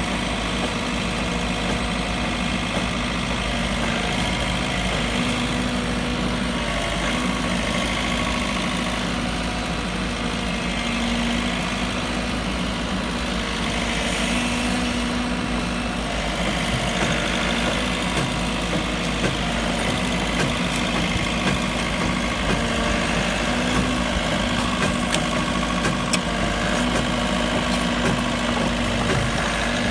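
JCB 86C-1 midi excavator's diesel engine running steadily, driving the hydraulics of an Orsi sickle-bar branch cutter trimming trees. A few sharp clicks near the end.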